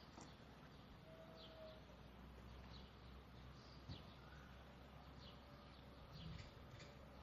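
Faint birdsong: scattered short, high chirps that drop quickly in pitch, with a brief lower whistle about a second in, over a steady low hum and hiss.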